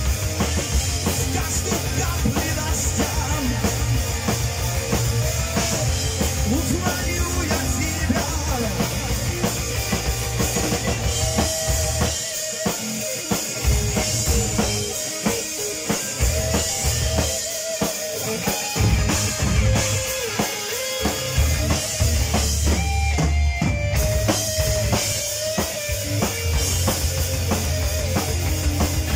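Live heavy rock band playing: electric guitars, bass guitar and a full drum kit, with a melody line on top. The bass and drums drop out for short breaks in the middle and then come back in.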